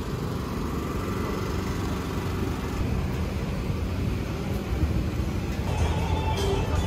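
Outdoor city background noise: a steady low rumble like distant traffic, with no distinct events.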